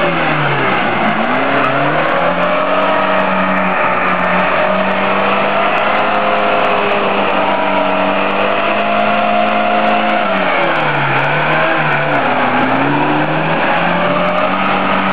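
Lada Niva's engine revving hard as its wheels spin in deep mud. The revs drop and climb again about a second in, hold high and steady for several seconds, then drop and climb twice more near the end.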